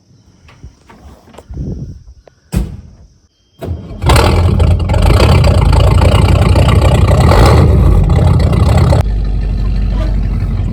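A few short knocks, then about four seconds in the truck's carbureted 302 V8 starts through its 3-to-4-inch step exhaust and runs loud. About nine seconds in it drops abruptly to a lower, steady running sound.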